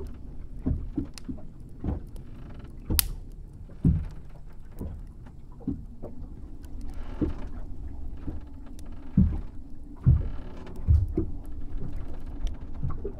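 Wooden boat ambience: a steady low rumble with irregular knocks and creaks of the hull, and water washing against it in slow swells every few seconds.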